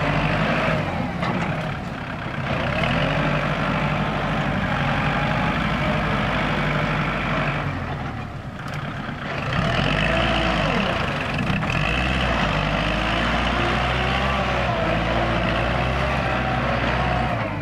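A Kubota L4708 tractor's four-cylinder diesel engine runs under load while the tractor pushes and levels loose soil. The engine note wavers up and down, and the sound dips briefly about two seconds in and again about eight seconds in.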